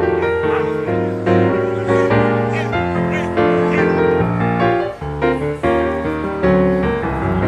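Loud instrumental music, a run of pitched notes changing every fraction of a second.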